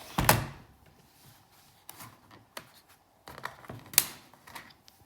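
Sharp plastic clicks and knocks from a laptop being handled as its battery latch is released and the battery is taken out. There are about half a dozen separate clicks, the loudest about four seconds in.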